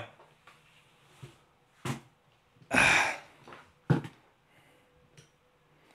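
Handling noises from objects being moved about on a table: a sharp knock about two seconds in, a louder rustling slide of about half a second just after, and a dull thump about a second later.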